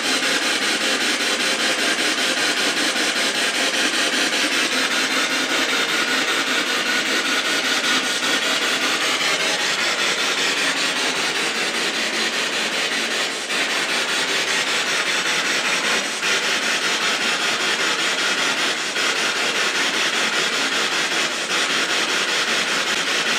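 Spirit box sweeping the radio band: a continuous hiss of static, chopped into rapid even pulses, with a few faint clicks along the way.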